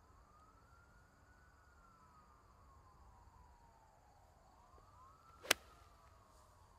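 A faint siren wailing, its pitch rising and falling slowly, with one sharp crack about five and a half seconds in.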